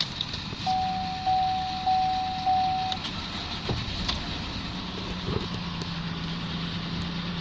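Four even electronic chimes, one after another, from a Holden VF Commodore's instrument cluster, over the 3.6-litre LFX V6 engine idling. After the chimes the steady idle hum carries on.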